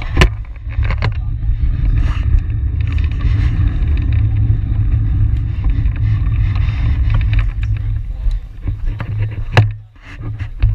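Wind buffeting a bike-mounted action camera's microphone as the bicycle rolls along the velodrome track, a steady loud rumble. A few sharp clicks come at the start and another near the end, after which the rumble drops briefly.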